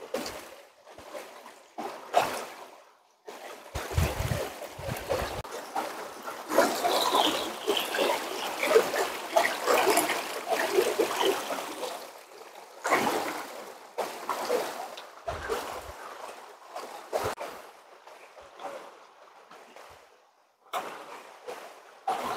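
Water splashing and trickling in irregular spells, busiest and loudest in the middle stretch, with short pauses between.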